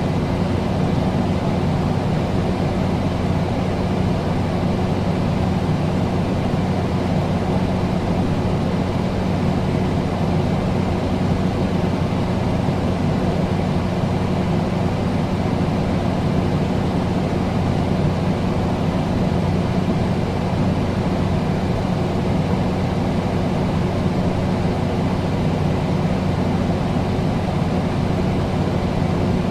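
Air conditioner running steadily: an even rush of air over a low, steady hum.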